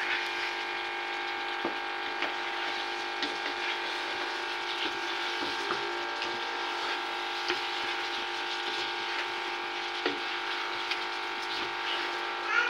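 A wooden spoon stirs and scrapes a simmering potato-and-meat curry in a non-stick wok, with scattered light knocks against the pan over a steady sizzle. Underneath runs a steady hum made of several tones.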